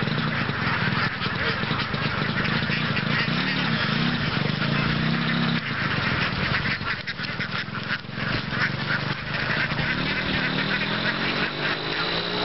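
A very large flock of domestic ducks, around two thousand birds, quacking all at once in a dense, continuous chatter. A steady low hum runs underneath for the first half and comes back near the end.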